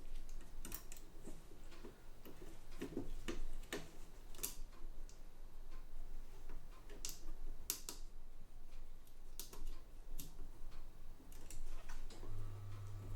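Irregular small clicks and taps of a screw and screwdriver against the metal plate of a Facit ESA-0 calculator as gloved hands try to start the screw in its hole. A short low hum comes in near the end.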